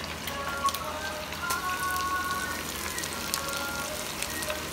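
Hot oil sizzling and crackling around pieces of chicken frying in a pan, a steady dense patter of small pops.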